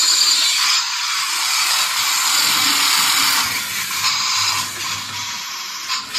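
Battery-powered remote-control toy tank running and driving: a steady, hissy electronic sound effect from its small speaker mixed with the whir of its motors and gears.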